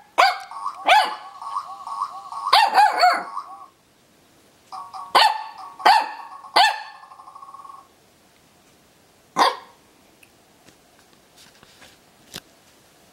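A Pembroke Welsh Corgi puppy barking in short, high yaps, in clusters with pauses between them and a last single bark about two-thirds of the way in. A steady warbling tone from a noisy dog toy runs under the first few seconds of barking.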